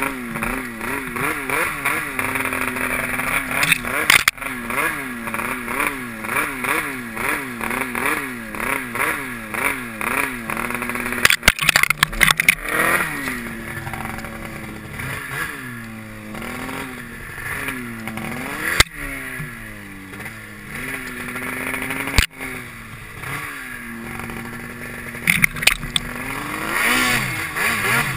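Snowmobile engine running hard through deep powder snow, its pitch rising and falling in quick surges as the throttle is worked, with a few steadier stretches. Several sharp knocks cut through it.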